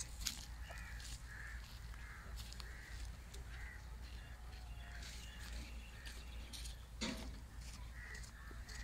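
Crows cawing faintly and repeatedly, about two short calls a second, over a steady low hum.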